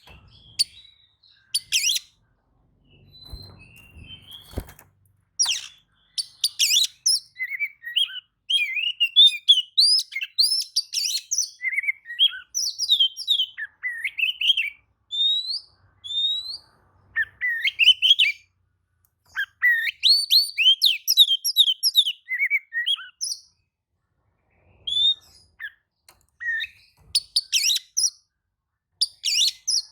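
Oriental magpie-robin (kacer) singing a long, varied song of quick sliding whistles and chirps, in phrases broken by short pauses and a longer pause about two-thirds through. A few low knocks sound about four seconds in.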